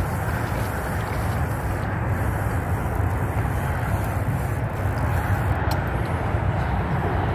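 Steady low rumble and hiss of open-air background noise, with no distinct events.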